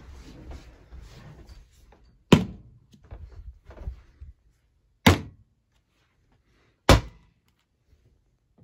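Three separate sharp knocks on household objects, each a short thunk, the second about three seconds after the first and the third about two seconds later. Quieter rustling and handling noise comes before them.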